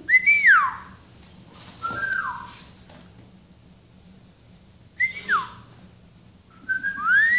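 A pet parrot whistling a few short, clear phrases with pauses between them. Most notes glide up and then fall away, and a rising note comes near the end.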